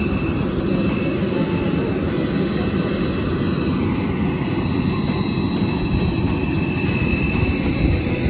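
Steady jet airliner noise: a continuous low rumble with a faint high whine above it.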